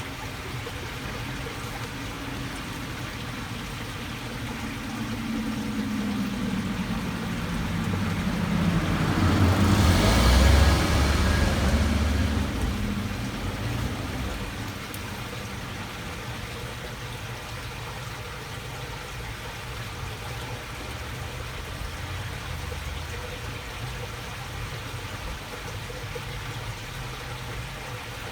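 A car drives past, building to its loudest about ten seconds in and fading by about fourteen seconds, its engine note dropping in pitch as it goes by. Water trickling steadily along a waterway runs underneath.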